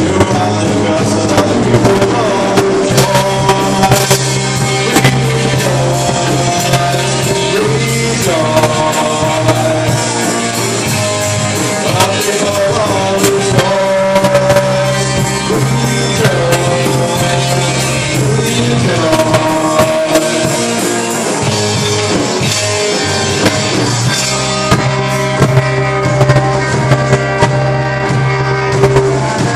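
Rock band playing live: electric guitars, bass guitar and drum kit, with a held melody line moving in pitch over a steady bass and regular drum hits.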